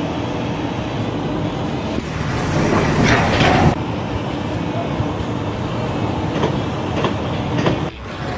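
Continuous heavy mechanical noise, louder for a stretch between about two and four seconds in, with sudden changes in level.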